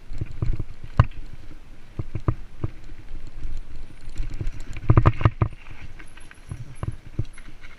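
Mountain bike ridden fast over a dirt forest trail: tyre rumble with the frame and chain rattling and knocking over bumps, the loudest cluster of knocks about five seconds in.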